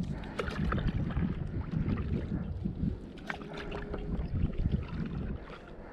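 Stand-up paddleboard paddle dipping and pulling through calm water, with repeated small splashes and drips.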